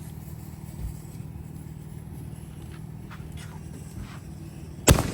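Steady low hum, then near the end one sharp, loud firework bang with a short ringing tail.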